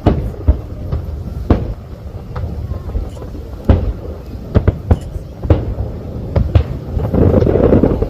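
Fireworks bursting: a run of sharp, irregular bangs, then a dense crackling near the end.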